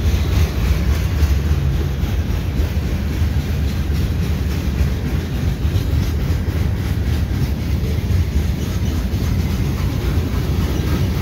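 Freight cars of a CPKC mixed freight rolling past close by: a steady low rumble of steel wheels on the rails.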